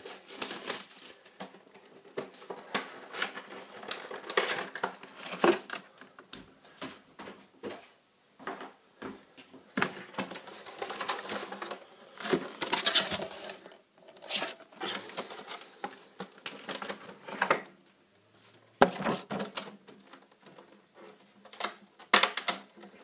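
Packaging of a Pokémon trading card collection box being handled and opened: irregular crinkling and rustling of wrapping with many small clicks and taps.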